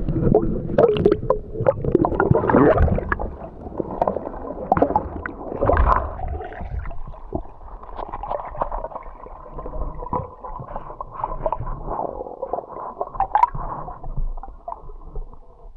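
Muffled gurgling and sloshing of water heard under water, with scattered clicks and knocks, busiest in the first six seconds and steadier after.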